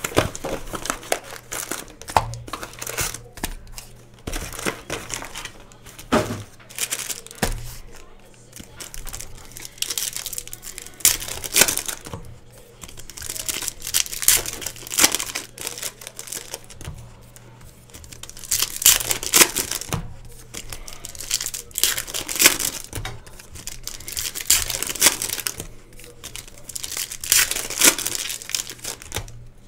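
Plastic foil wrappers of 2018 Panini Donruss Optic football packs crinkling and tearing by hand, in repeated bursts of a second or two, over a faint steady low hum.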